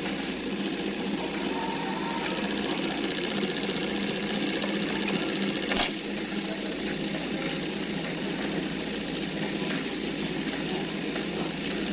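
Pathex Model C 9.5mm film projector running steadily on its electric motor, its mechanism driving the film through the gate. A single sharp click sounds about six seconds in.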